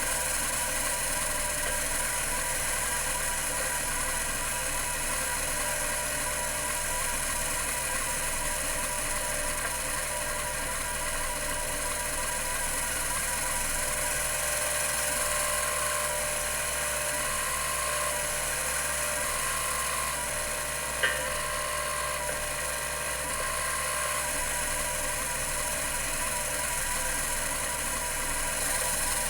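Computer Memories Inc. CM-5412 full-height 5.25-inch hard drive running, its two platters spinning at 3600 RPM, with a steady high whine and hum. Midway a faint tone pulses on and off for several seconds, and a single sharp click comes about three-quarters of the way through.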